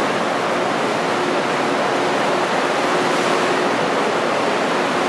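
Sea water rushing and churning between the hulls of two ships steaming close alongside at speed, a steady loud wash with a faint steady hum underneath.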